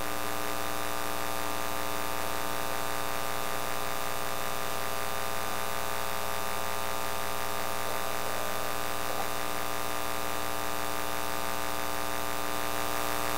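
Steady electrical mains hum and buzz, a stack of many even tones that holds at one level throughout.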